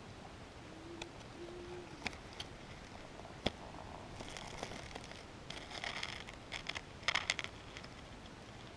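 Small campfire being fed kindling: faint, scattered sharp snaps in the first few seconds, then a few seconds of rustling and crackling of sticks and twigs past the halfway point.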